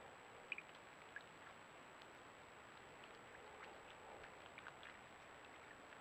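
Near silence: faint hiss with a few soft ticks and light splashes as a white-tailed deer wades through a shallow muddy puddle, the sharpest tick about half a second in.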